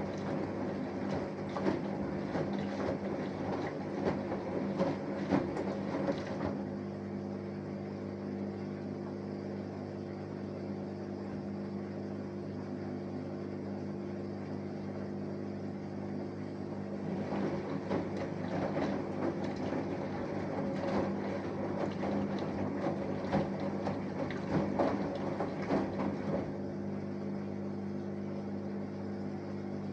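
Samsung Eco Bubble 6.5 kg inverter-motor washing machine during a wash: the drum tumbles with water sloshing for about six seconds, pauses for about ten seconds, then tumbles again for about nine, over a steady hum.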